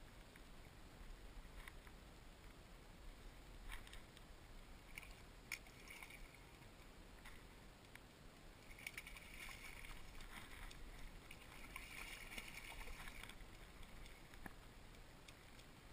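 Faint, quiet water lapping against a boat's hull, with a few soft clicks and a stretch of faint fizzing hiss from about nine to thirteen seconds in.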